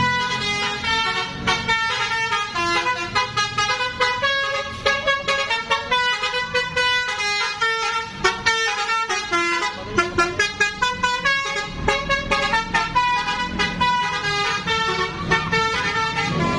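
Bus's multi-tone basuri 'telolet' horn playing a fast melody of short notes, with the engine rumbling underneath.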